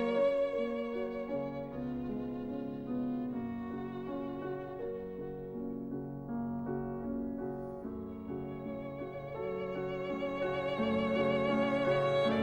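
Background music: a slow violin melody played with vibrato over held accompanying notes, dipping quieter through the middle and swelling again near the end.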